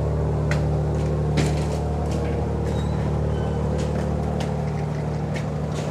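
Ferry engine running with a steady low drone, and a few faint clicks or knocks over it.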